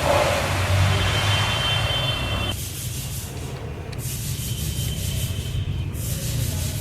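Steering column parts being rubbed and worked by hand as they are greased. A steady rubbing noise stops sharply about two and a half seconds in, and quieter fluttering rubbing follows.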